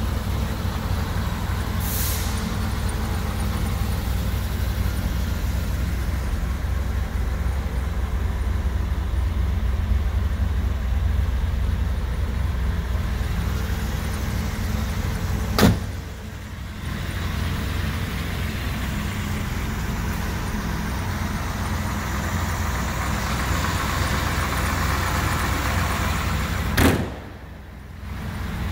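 A 1966 Corvette L79 327 V8 idling steadily after a cold start, with a deep, even rumble. Two sharp clicks cut in, one just past halfway and one near the end, each followed by a brief drop in level.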